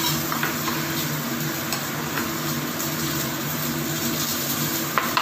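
Kitchen knife slicing chilies on a plastic cutting board: a few scattered light taps and a sharper knock near the end, over a steady hiss and low hum.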